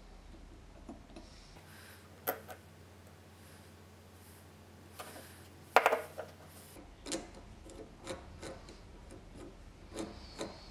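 A metal spokeshave handled on a wooden workbench: a few knocks as the tool is turned over and set down, the loudest about six seconds in, then a run of small clicks and ticks as the blade's adjusting thumb nuts are worked.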